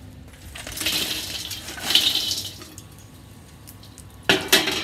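Hot charcoal poured from a metal chimney starter into a small kettle grill: a rushing, rattling tumble of coals for a couple of seconds, then two sharp clanks near the end.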